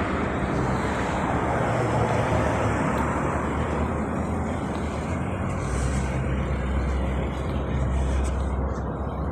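Road traffic going by: a steady rush of car tyres and engines, with a deeper engine hum coming in about five seconds in.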